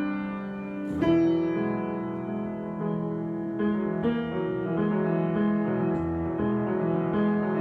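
Improvised instrumental music: a chord struck about a second in, then slower notes changing over sustained lower tones.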